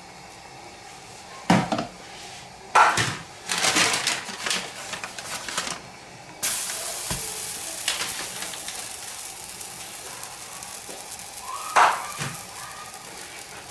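A raw millet-and-vegetable paratha laid on a hot tawa starts sizzling suddenly about halfway through, and the steady hiss carries on to the end. Before that come a few sharp knocks and clinks of a steel plate and utensils, and there is one more knock near the end.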